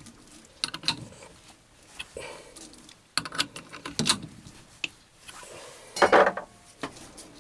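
Metal clicks and clinks from a chuck key and the steel jaws of a four-jaw independent lathe chuck as a plastic block is clamped and the chuck turned by hand, with a louder metallic clunk about six seconds in.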